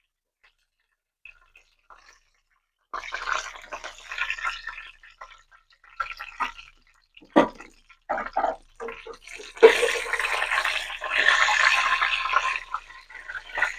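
Fried chicken being handled out of hot oil: bursts of sizzling and dripping that start about three seconds in and grow loudest and most continuous near the end, with one sharp knock about halfway through.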